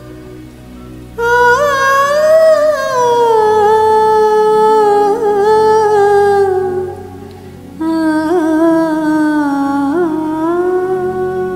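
A woman's voice vocalising a wordless melody in two long phrases of held, wavering notes, the first drifting slowly down in pitch, over a soft karaoke backing track.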